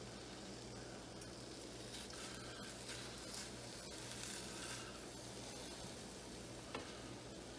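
Bacon sizzling faintly in a preheated cast iron skillet, the sizzle swelling for a few seconds as another raw strip is laid into the pan, over a steady low hum. A single sharp click near the end.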